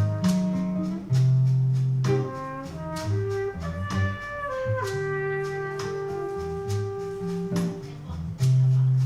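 Live jazz combo playing a slow ballad instrumental: a trumpet plays a melodic solo, including one long held note in the middle, over low guitar notes and light percussion.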